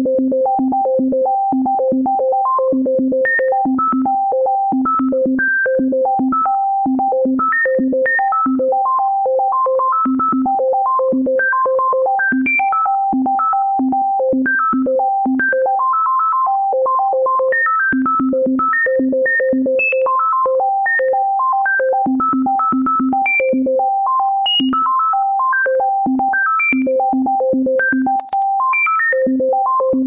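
Synthesizer playing an unbroken run of short, separate notes, several a second, leaping between low and high pitches: a sonification of the prime numbers, each note taken from the sequence of primes.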